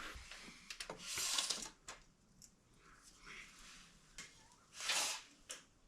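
Faint handling sounds while measuring on the shop floor: a few light clicks and two brief rubbing sounds, one about a second in and one near the end.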